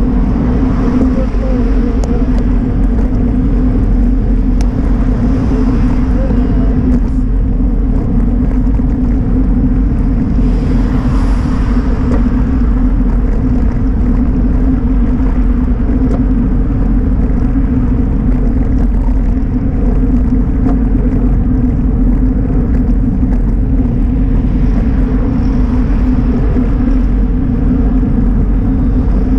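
Steady wind buffeting and road rumble on a bicycle-mounted camera while riding along a highway shoulder, with a brief louder rush about ten to twelve seconds in.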